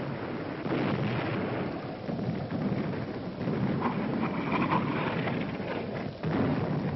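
Continuous low rumble and rushing noise on an old 1940s film soundtrack, like distant thunder or heavy gunfire, swelling louder about a second in and again near the end.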